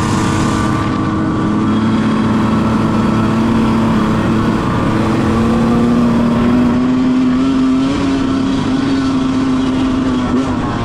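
Dirt bike engine running steadily while riding, its pitch creeping up over several seconds and dipping slightly near the end.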